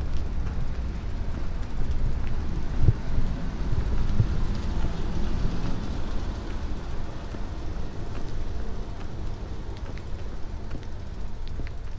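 Low steady rumble with a few faint clicks and rattles from a bicycle being pushed along a paved street, picked up through the camera riding with it.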